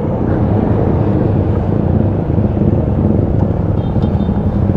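Small motorcycle engine running steadily while riding, with wind rumble on the helmet camera's microphone.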